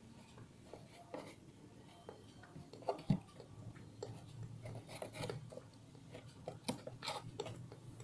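Small clicks, taps and rustles of hands handling a plastic toy squishy vending machine, with one sharper knock about three seconds in.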